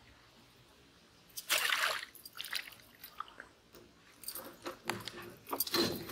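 A hooked fish splashing at the surface as it is struck and pulled from the pond, about one and a half seconds in, followed by scattered knocks and thumps as the fish is landed and handled in the wooden boat.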